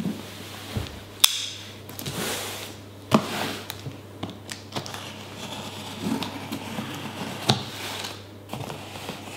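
Cardboard shipping boxes being handled and shifted on a wooden table: a few sharp knocks and short scraping, rustling noises at irregular moments.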